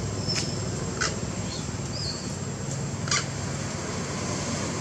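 Long-tailed macaque giving short, sharp high-pitched calls, three of them within about three seconds, with a small chirp between, over a steady low rumble.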